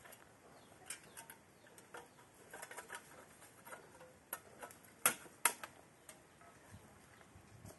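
Metal chimney pipe of a samovar clinking and scraping as it is worked down onto the samovar's top, in light irregular clicks with two sharper clinks about five seconds in.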